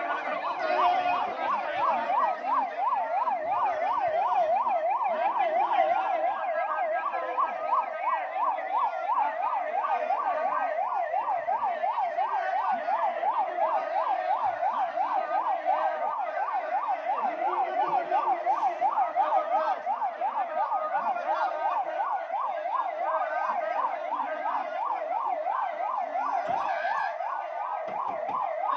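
Emergency vehicle siren sounding without a break, its pitch sweeping quickly up and down several times a second.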